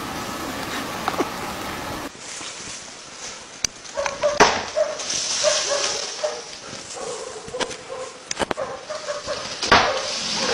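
Horns clashing as two horned animals butt heads: several sharp cracks, the loudest near the end, with short repeated animal calls in between.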